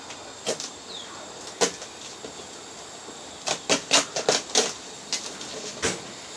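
Folding spatula scraping and tapping against a GSI Bugaboo frying pan while stirring eggs as they cook: a few single scrapes, then a quick cluster of scrapes and taps in the middle, over a steady hiss.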